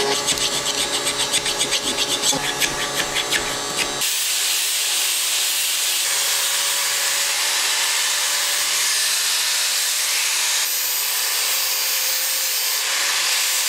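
Hand file rasping back and forth inside the square hardy hole of an anvil, about four strokes a second. About four seconds in it changes to an angle grinder grinding the anvil's edge, a steady high hiss.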